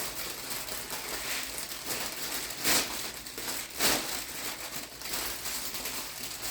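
Plastic gift-basket wrap crinkling and rustling as it is handled and smoothed, with a couple of sharper, louder crackles near the middle.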